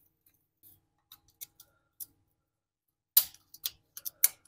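Small metallic clicks and ticks from hand work on an 8 hp Tecumseh engine's governor linkage: a sparse scatter of faint clicks, then a quick run of sharper clicks from about three seconds in.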